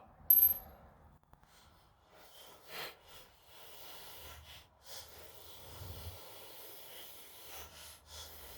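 A sharp metallic clink with a brief high ring about half a second in, as the removed bracket parts are handled. After it there are faint handling rustles, soft knocks and breathing.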